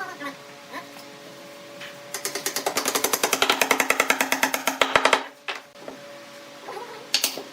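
A fast, even run of mechanical taps, about ten a second, for some three seconds in the middle, over a steady low hum.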